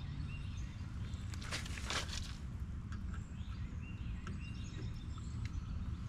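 Steady low outdoor rumble, with a few faint short high chirps and some rustling clicks about one and a half to two seconds in.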